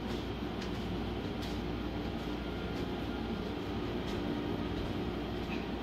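A steady mechanical hum with a faint low drone and a few light clicks.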